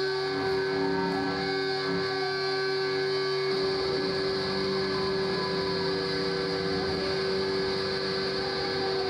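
Electric guitar feedback from the stage amplifiers, a steady drone of several held tones with no playing or beat, left sounding after the last song ends.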